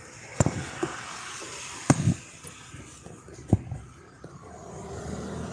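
Low rumble of street traffic that grows louder near the end, broken by three sharp knocks about a second and a half apart.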